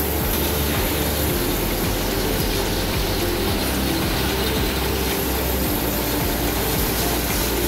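Steady mechanical running noise of factory machinery, a continuous clattering, gear-like rattle over a hum.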